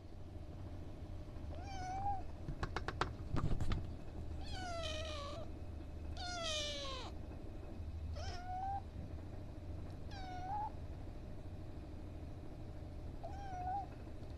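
Ginger kitten mewing about six times, high-pitched, some calls sliding down in pitch. A quick run of sharp clicks comes about three seconds in. A steady low hum lies underneath.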